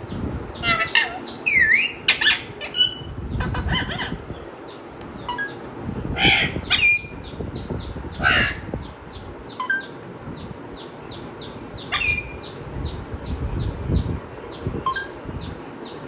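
A parrot, the Alexandrine parakeet known as the raw parrot, giving a series of loud, short whistles and squawks with sliding pitch. Faint, rapid chirping from other birds runs underneath.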